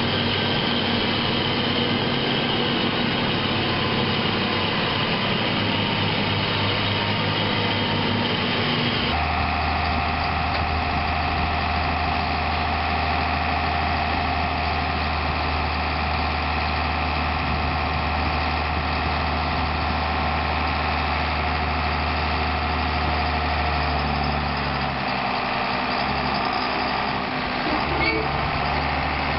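Heavy diesel engines of maize-harvesting farm machinery running steadily. The engine note changes abruptly about nine seconds in and shifts again near the end.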